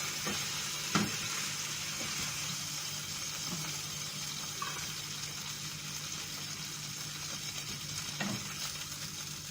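Thin slices of beef entrecote sizzling steadily as they sear in a frying pan, with a faint knock about a second in and another near the end.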